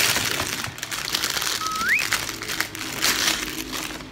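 Clear plastic packaging bag crinkling as it is handled and pulled off the ring light's phone holder, in a run of rustles and crackles, with a brief rising tone about halfway through.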